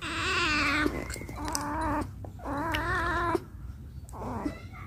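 Domestic cat yowling: three long calls with a wavering pitch, then a shorter, fainter call that falls in pitch near the end.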